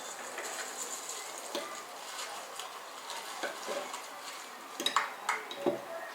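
Kitchen utensils stirring and clinking against dishes over a faint steady hiss, with a few sharp clinks near the end.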